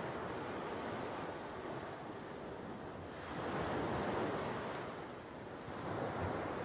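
Ocean waves breaking and washing up a beach, a steady rushing surf that swells about halfway through and again near the end.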